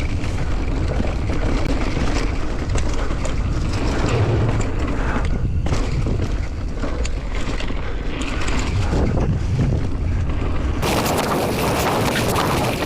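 Wind rushing over the microphone of a mountain bike on a fast descent, with the rattle and crunch of tyres and bike over a loose dirt trail. It turns brighter and hissier about eleven seconds in.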